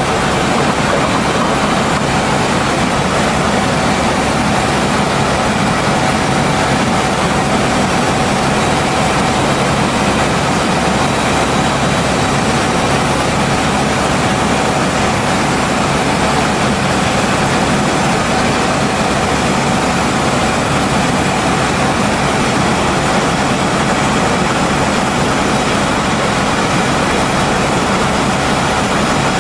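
Helicopter engine and rotor noise heard from inside the cabin, loud and steady, with a thin steady whine over it.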